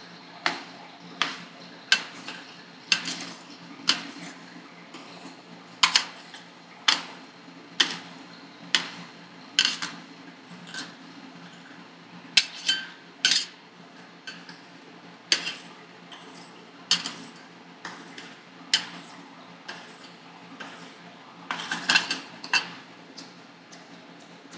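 Steel ice-cream spatulas striking a metal cold plate while rolled ice cream is chopped and worked: sharp metallic taps about once a second, with a quick flurry of taps near the end.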